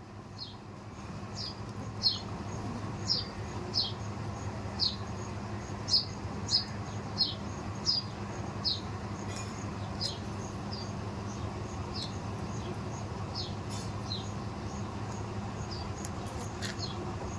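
A bird repeating a short, high, falling chirp about once a second over a steady low hum. The chirps are loudest in the first half and grow fainter later.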